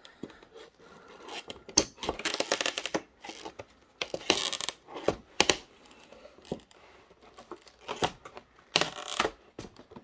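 Model-train packaging being handled: a clear plastic blister tray and paper insert rustling and scraping against the cardboard box, with sharp clicks. Comes in irregular bursts, the loudest about two, four and nine seconds in.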